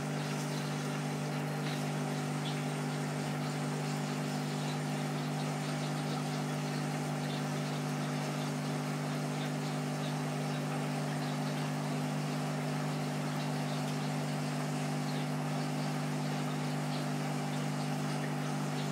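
Aquarium air pump humming steadily as it drives a sponge filter, with faint bubbling.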